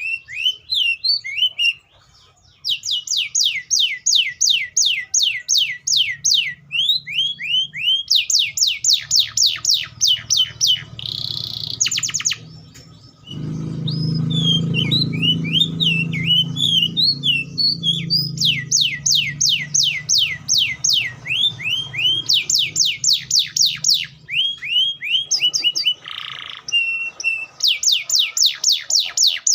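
Canary singing a long, fast song: runs of rapid repeated trill notes alternate with chattering whistled notes and a couple of short buzzy phrases.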